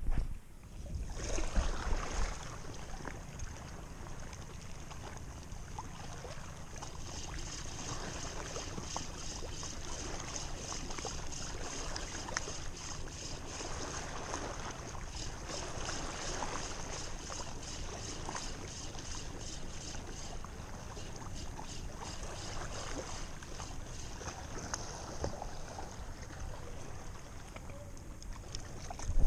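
A spinning reel cranked steadily to retrieve a lure, a fast, even whirring tick, over water lapping against rocks. There is a burst of wind and handling noise in the first couple of seconds as the rod is cast.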